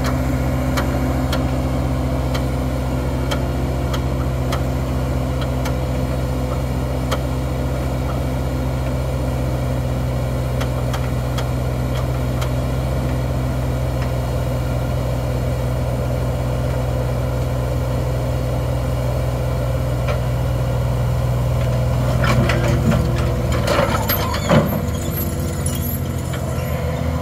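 Diesel engines of a Terex compact track loader and a mini excavator running steadily at idle, as the loader holds the excavator up. A few metallic clanks and a sharp knock about 24 seconds in, as the excavator is brought back down onto its tracks.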